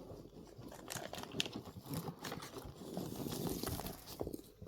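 Faint rustling and light scratching of parcel packaging as a cat rummages in it, with scattered small clicks.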